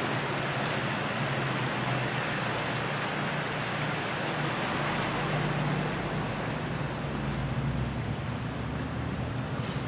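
Vehicle driving slowly, a steady rushing noise with a low engine hum that rises and falls a little.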